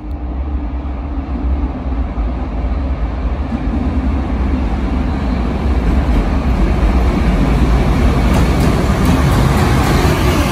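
JR Freight EH500 'Kintaro' electric locomotive hauling a container freight train through the station without stopping. Its running noise grows steadily louder as it approaches and draws level, with a run of sharp wheel-on-rail clicks as the locomotive goes by near the end.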